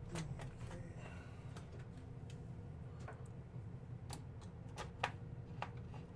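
Irregular sharp clicks and taps from a laptop keyboard as it is handled and pressed into place in the opened laptop, about ten in all, the loudest about five seconds in.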